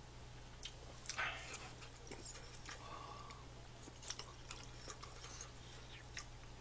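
Faint chewing of a mouthful of soft rice with spicy octopus: scattered, irregular soft mouth clicks over a steady low hum.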